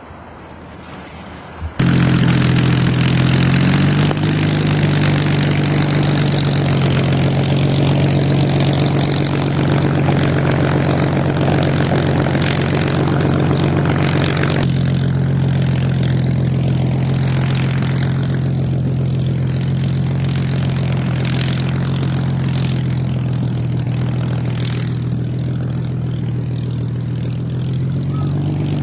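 Supermarine Spitfire's Rolls-Royce Merlin V12 engine and propeller running steadily. It comes in suddenly about two seconds in; the hiss above it eases about halfway through.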